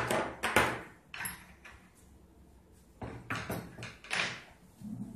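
Sharp knocks and clatters as parts of a stainless-steel piston filling machine are handled during disassembly: the loudest knock comes right at the start, then a few more, and a cluster of knocks from about three seconds in.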